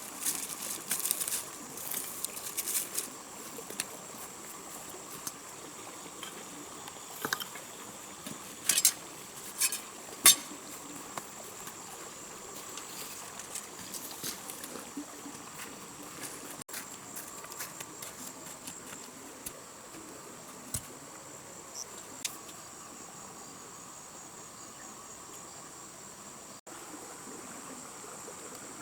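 Steady drone of insects, with a high even band over a fainter lower hum. Scattered sharp clicks and knocks fall mostly in the first half, the loudest about nine and ten seconds in.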